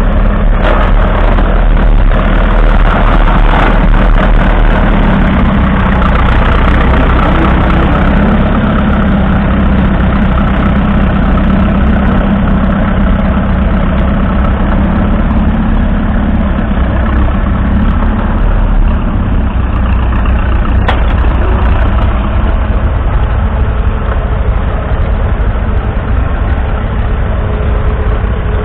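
1942 Fordson Model N's 4.4-litre four-cylinder petrol/TVO tractor engine running steadily at low speed.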